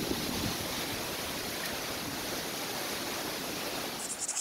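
Steady rushing noise of storm wind blowing through big trees, with wind buffeting the microphone.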